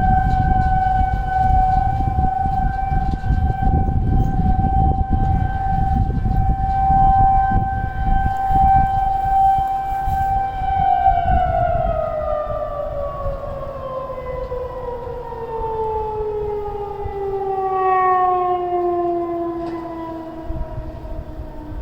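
Two Federal Signal 2001-SRNB electromechanical outdoor warning sirens at slightly different pitches, sounding the steady alert tone of a monthly test. About halfway through they begin winding down, with the pitch falling steadily. A low rumbling noise runs underneath.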